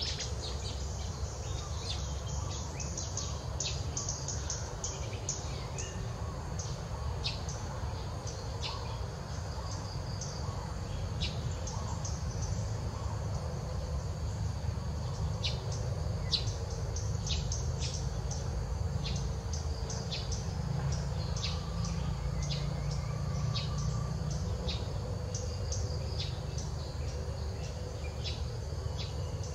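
Outdoor ambience: many short, high bird chirps scattered through, over a steady high insect hum and a low rumble.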